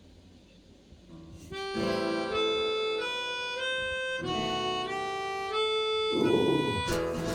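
Live song intro: after a short quiet pause, an accordion starts about a second and a half in, playing a melody in sustained chords. Near the end the rest of the band comes in.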